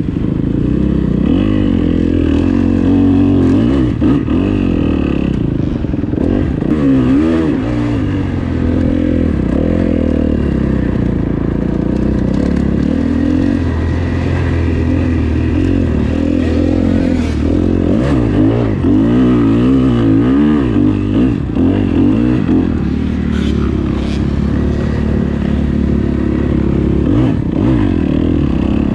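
Motocross dirt bike engine revving up and down through the gears as it is ridden around a track, its pitch rising and falling again and again.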